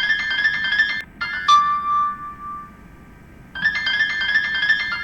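Apple iPhone ringtone from iOS 1 to 6 playing. A fast run of repeated notes lasts about a second, then after a short break a few more notes end on one held tone. The phrase starts again about three and a half seconds in.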